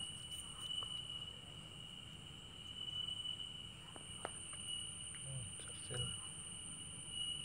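Faint light clicks and taps of a round metal motorcycle clutch part being turned and handled in the hands, over a steady high-pitched whine.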